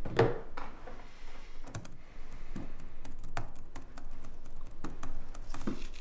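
Typing on a laptop keyboard: quick, irregular key clicks.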